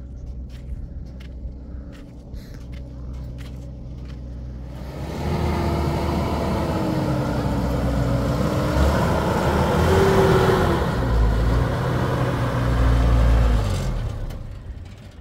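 A motor vehicle's engine and rumble. It is steady and low at first, grows much louder about five seconds in, and fades away near the end, like a vehicle passing close by.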